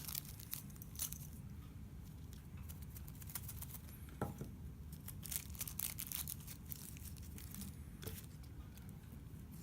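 Packaging being handled during unboxing: scattered rustling and light clicks as the contents of the box are lifted out and a pouch is handled.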